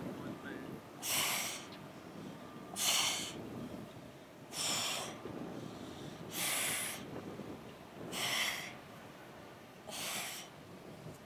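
A woman breathing out hard with each crunch, six sharp exhalations in a steady rhythm about every two seconds, over a steady low background noise.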